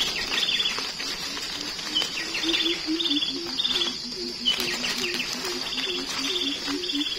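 Birds calling in short, high trilled phrases that repeat every half second or so. Under them run a steady high insect buzz and a quick, low two-pitch pulsing call at about four a second.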